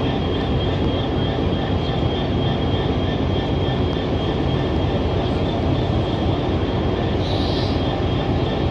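Freightliner Class 66 diesel locomotive's two-stroke EMD V12 engine running at low power: a steady low diesel rumble with a constant high whine over it. A short hiss sounds near the end.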